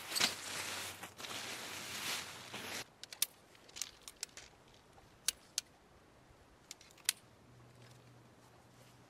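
Nylon tent fabric rustling and crinkling as the tent is pulled out of its stuff sack, stopping abruptly about three seconds in. Then comes a scattering of sharp, separate clicks as the tent poles and clips are fitted.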